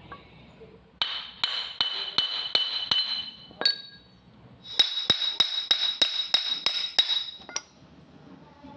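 Metal being hammered in two quick runs of about three blows a second, each blow ringing with a high metallic tone, with a single clink between the runs and one after.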